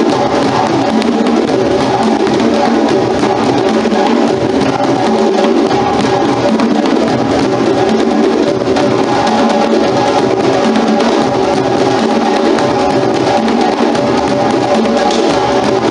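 Drum-led percussion music with a dense, steady beat.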